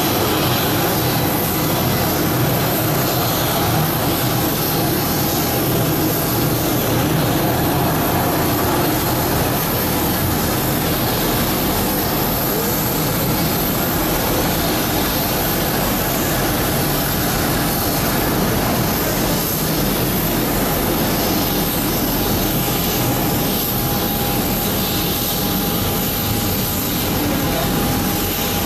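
Twin turbofan engines of a Boeing 737 Classic running at low power as it taxis: a steady jet whine over a broad rumble.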